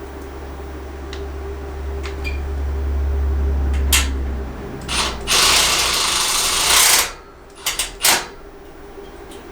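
Handheld power tool running in one burst of about a second and a half, with sharp clicks and knocks of hardware before and after it.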